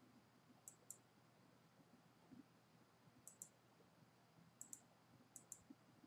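Computer mouse clicking: four quick pairs of faint clicks spread over a few seconds, over near silence.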